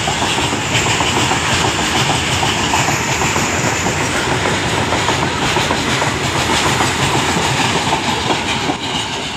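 Goods train of BOXN open freight wagons running through at high speed: a steady rolling rumble with rapid clatter of wheels over rail joints, easing slightly near the end.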